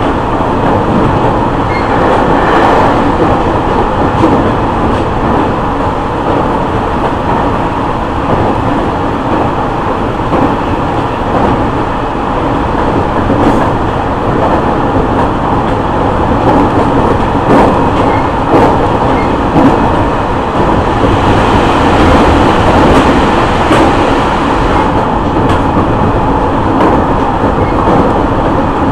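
Running noise inside a JR East E501 series electric commuter train at the end of a motor car: a steady rumble of wheels on rail, with a faint steady whine from the Siemens VVVF traction motors and a few sharp clicks from rail joints.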